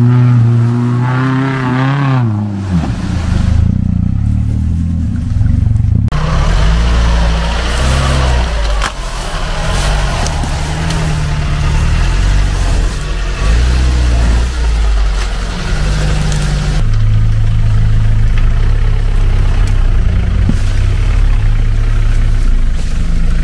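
Off-road vehicle engines on big tractor tyres revving hard through deep mud: the engine note climbs and drops in the first seconds, then keeps rising and falling as the wheels churn through the mud.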